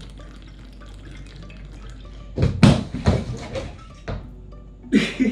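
Soft background music, then about two and a half seconds in a loud, messy burst of water splashing as a swig from a glass bottle goes wrong, with two shorter splashes near the end.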